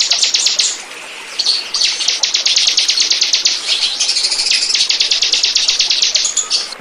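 Ciblek (prinia) calling a long, fast run of sharp chirps, around ten a second, with a short break about a second in.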